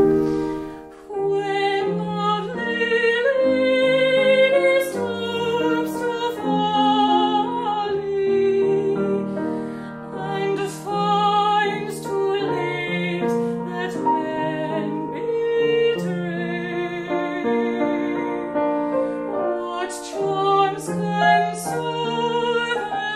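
A woman singing a song in a classical, operatic style with vibrato, accompanied by a grand piano.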